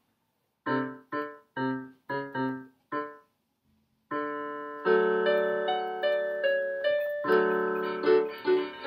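Casio CTK-750 electronic keyboard played with a piano sound: five short, detached chords in the first three seconds, then, about four seconds in, held chords with a melody moving above them.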